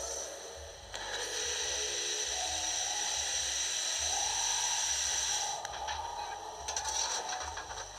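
Steam sound from the DCC sound decoder in a model GWR Large Prairie tank locomotive, played through its small speaker while the model runs on a rolling road. A steady hiss carries a tone that rises in pitch, then from about five and a half seconds fast, irregular clicking breaks in. The sound has gone erratic.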